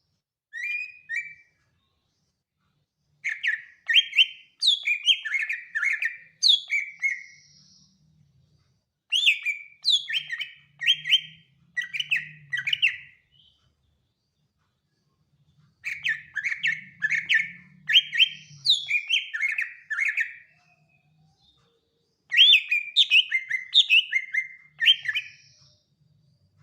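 Greater green leafbird (cucak ijo) singing: a short phrase near the start, then four long bursts of rapid, sliding whistled notes, with pauses of a couple of seconds between them.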